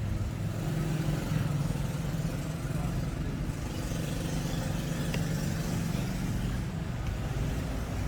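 A steady low mechanical hum, like an engine running, with a faint click about five seconds in.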